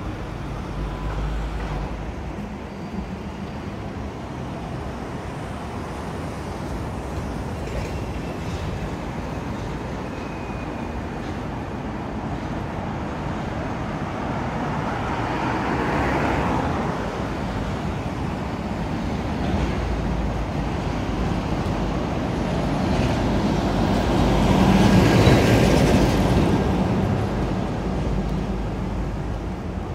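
City road traffic running steadily beside the pavement, with vehicles passing close by, swelling once about halfway through and more loudly again later on.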